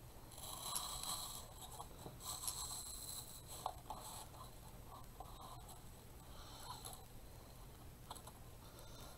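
Faint scratchy rustling in several short spells, with a few light clicks, from artificial cattail and greenery stems being handled and set into a block of floral foam.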